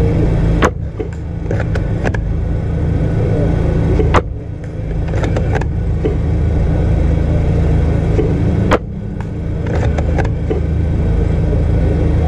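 Upgraded Tokyo Marui VSR-10 spring bolt-action airsoft sniper rifle firing three shots about four seconds apart, each a sharp crack followed a second or so later by a few softer clicks of the bolt being cycled. A steady low rumble runs underneath.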